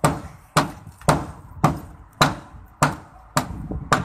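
Steady, repeated hammer blows, eight strikes at about two a second, each with a short ringing decay.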